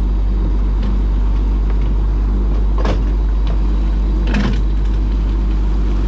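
Fishing boat's engine running with a steady low drone. Two sharp knocks sound over it, one near the middle and one about a second and a half later.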